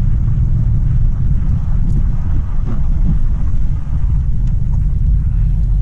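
Steady low rumble of a car's engine and tyres heard inside the cabin while driving on a wet road.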